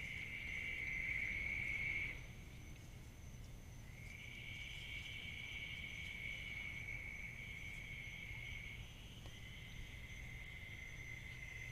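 Night insect trilling steadily at a high pitch in long stretches, pausing for about two seconds near the start and briefly again about nine seconds in. A fainter, higher steady buzz runs underneath.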